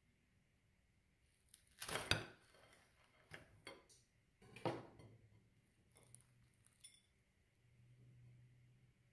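Short knocks and clinks of a ceramic plate on a wooden table while a fried fish sandwich on it is pressed down and handled, the loudest about two seconds in and another just before five seconds, with a few light clicks after.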